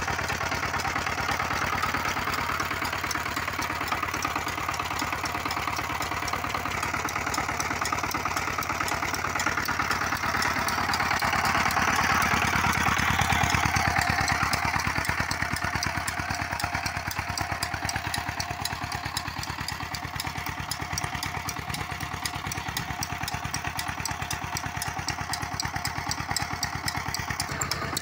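Chief 23 hp single-cylinder diesel engine running steadily with a rapid, even exhaust beat, driving a tube-well water pump by flat belt. It grows louder about halfway through, then eases back.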